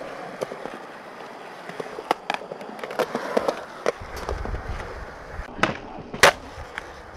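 Skateboard wheels rolling on smooth concrete, broken by sharp wooden clacks of the board popping and landing as flip tricks are done. The loudest clack comes about six seconds in, with a low wheel rumble under the second half.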